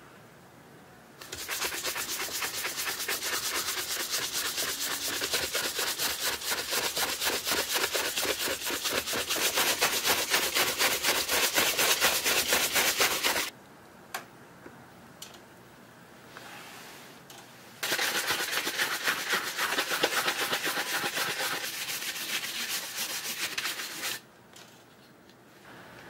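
A shoe brush buffing a shell cordovan shoe in quick, rhythmic back-and-forth strokes, in two long bouts with a pause of a few seconds between them.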